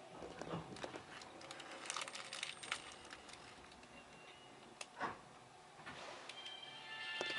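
Cabin of a Meitetsu 2000 series μSKY train running at speed: a quiet running hiss with scattered clicks and rattles from the wheels and car body. Near the end, a level-crossing bell starts ringing and grows louder.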